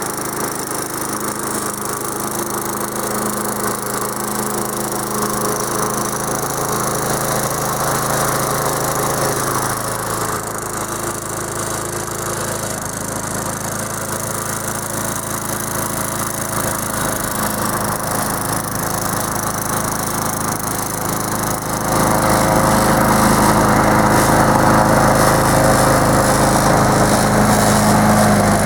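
Gasoline engine of a homemade radio-controlled lawn mower running steadily, getting louder about two-thirds of the way through.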